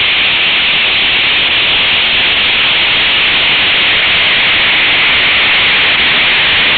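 Seismometer ground-motion record sped up 10,000 times, heard as a steady, loud hiss: the seismic signal that Hurricane Dorian's storm waves shake into the ground.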